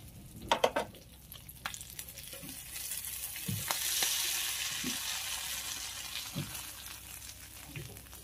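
Hot oil and frying shrimp paste (terasi) sizzling in a grill pan. The hiss swells about three seconds in and then fades, with a few sharp metal clinks near the start.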